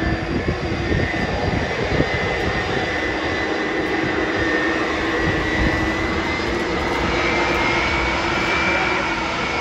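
Boeing 747-400F's four jet engines running on the runway: a steady rumbling roar with a held whine that creeps up in pitch about seven seconds in.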